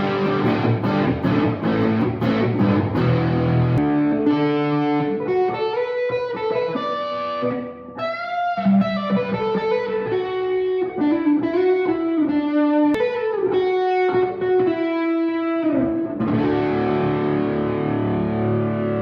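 Electric guitar, a Fender-style parts-caster, played through distortion. It opens with rhythmic strummed chords, changes about four seconds in to single-note lead lines with string bends, and returns to ringing chords near the end.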